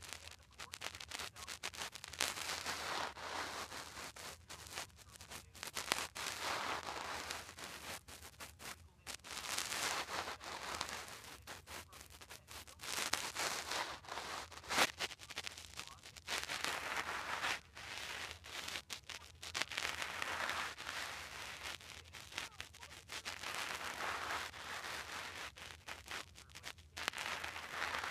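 Narration of a video playing through a phone's small speaker, picked up second-hand and heard as a muffled, hissy voice in phrases with short pauses.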